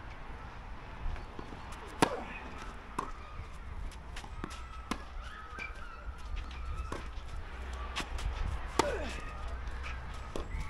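A tennis rally: sharp pops of racket strings striking the ball and the ball bouncing on the court, about every second or two. The loudest hits come about two seconds in and again near the end.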